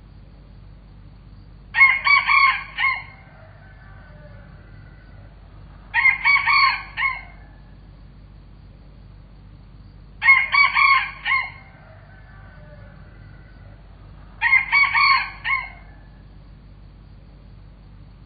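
Rooster crowing four times, about every four seconds, each crow lasting about a second and a half.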